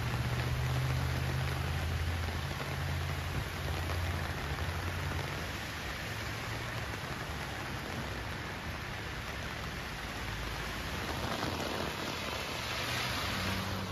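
Heavy rain pouring onto a flooded road, a steady hiss, with a low rumble in the first few seconds. The hiss swells louder near the end.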